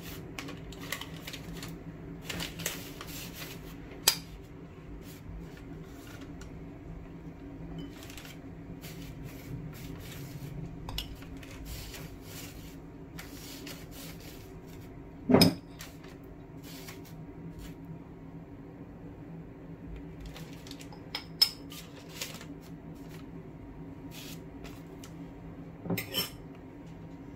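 Metal spoon clinking and scraping as it scoops marinade and spreads it over whole sea bass: scattered sharp clinks, the loudest about halfway through, over a steady low hum.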